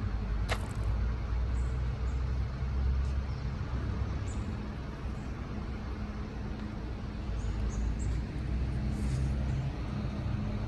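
Scania R560 truck's V8 diesel engine running at low revs as the loaded B-double rolls slowly forward, a steady low rumble. There is one brief sharp sound about half a second in.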